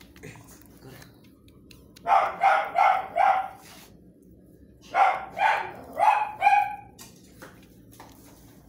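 A dog barking in two quick runs of about four barks each, the first about two seconds in and the second about five seconds in.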